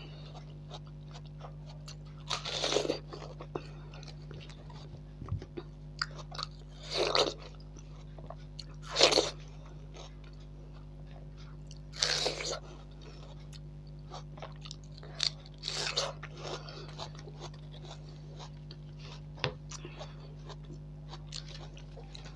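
Close-mic'd bites into juicy watermelon slices, each a short wet crunch every few seconds, with soft chewing and mouth clicks between, over a low steady hum.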